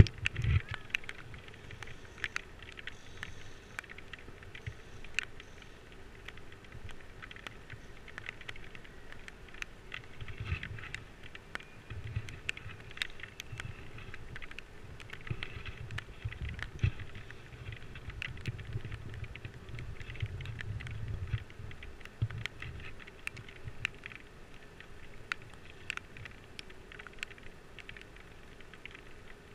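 Raindrops ticking irregularly on a GoPro's waterproof housing, with wind buffeting the microphone now and then.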